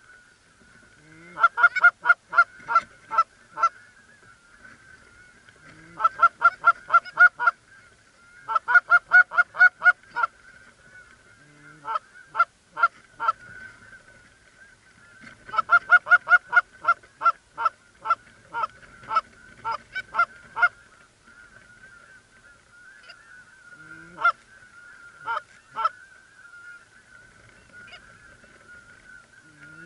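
Canada geese honking: loud runs of short, clipped honks and clucks at about four a second, coming in bursts of two or three seconds, over a faint steady chorus of a flock honking. The bursts thin out to a few single honks in the last third.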